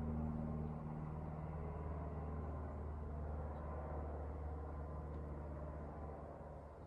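A low, steady engine-like hum with a few held tones above it, fading slowly over the last couple of seconds.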